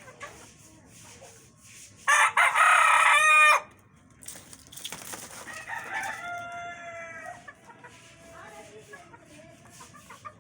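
A rooster crows loudly about two seconds in, followed a few seconds later by a softer, longer crow, with chickens clucking.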